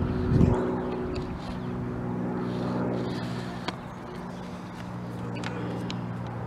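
A motor hums steadily with a low, even drone, with a loud low thump about half a second in and a few faint clicks later on.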